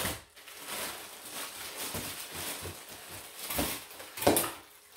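Rustling and crinkling of plastic wrap and styrofoam packing as panels are pulled out of a cardboard box, with one sharper knock about four seconds in.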